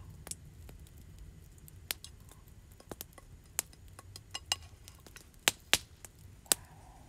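A utensil clinking against a frying pan as food is served out of it: scattered single sharp clinks, about a second apart at first, with two loud ones close together past the middle.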